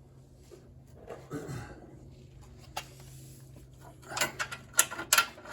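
Light metallic clicks and knocks of hand tools working the muffler's mounting bolts, growing busier and louder in the last second and a half, over a faint steady hum.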